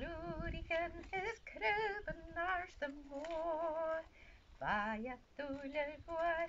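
A woman singing solo, her held notes wavering with vibrato, phrase after phrase.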